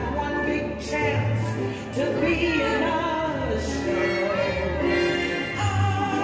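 Light-and-sound show soundtrack music: a voice sings long held notes, some of them bending in pitch, over steady low bass notes.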